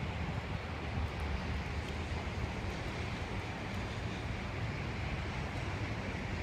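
Steady ambience of a city street in the rain: a continuous low rumble of traffic under an even hiss, with no distinct events standing out.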